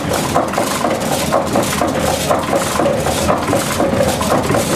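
Windmill machinery grinding wheat into flour: a steady, dense clatter of rapid wooden knocks and rattles over the grinding noise of the millstones.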